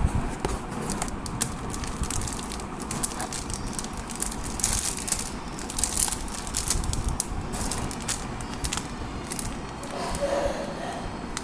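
Plastic and paper packaging being handled and opened, crinkling and rustling with irregular sharp crackles.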